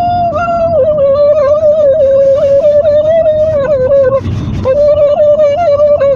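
A person's voice making a weird noise: one high, slightly wavering held tone, breaking off briefly about four seconds in and then carrying on.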